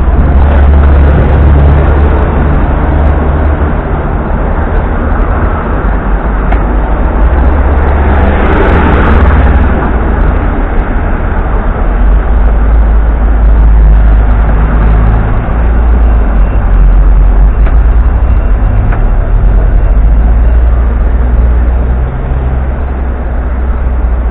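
Hong Kong double-decker electric tram running: a loud, steady low rumble, with a brief swell in the noise about eight to nine seconds in.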